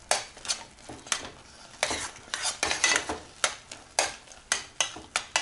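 A metal spoon scraping and knocking against the sides of an enamel pot while stirring thick oat-and-semolina porridge, in repeated short strokes about two a second.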